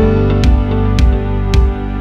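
Background music of sustained instrumental notes over a beat that thins to a few hits.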